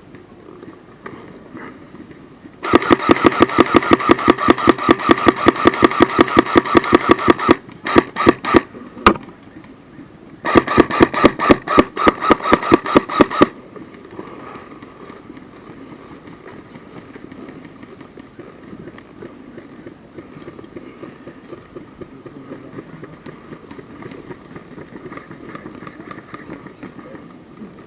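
Electric airsoft gun firing on full auto: a long burst of rapid, evenly spaced shots at about eight or nine a second, a few single shots, then a second shorter burst.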